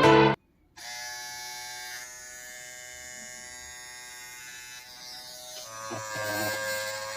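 Small DC motor of a homemade mini drill running with a steady electric whine. About six seconds in its pitch drops slightly and it gets louder.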